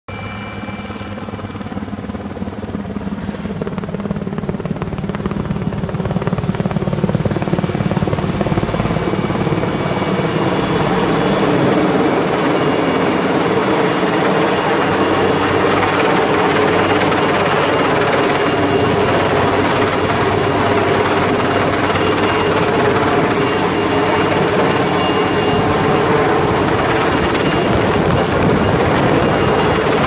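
Helicopter rotor and engine, growing louder over the first several seconds as it comes in, then a steady loud drone with a high whine as it hovers overhead with a harvest bin slung on a long line.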